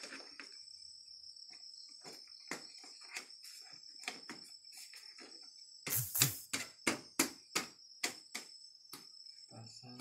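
Crickets chirping steadily, with scattered clicks and taps of plastic motorcycle body panels being handled and pressed into place. About six seconds in comes a quick run of sharp knocks, about four a second for two seconds, the loudest sound here.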